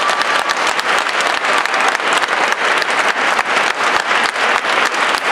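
Concert audience applauding: dense, steady clapping from a full hall.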